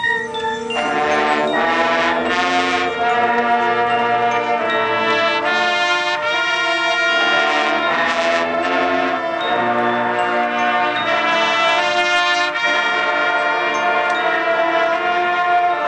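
High school marching band playing, its brass section carrying loud, full sustained chords. The band comes back in right after a brief lull and swells to full sound about a second in.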